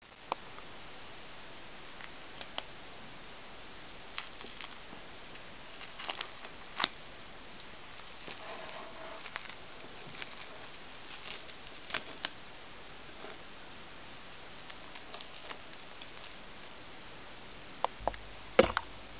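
Plastic cling film crinkling and crackling in irregular bursts as it is peeled back off a plate, with a sharp tap near the end.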